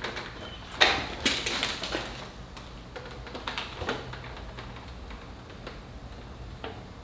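A few scattered knocks and clicks with some rustling, the loudest about a second in, over a faint low hum.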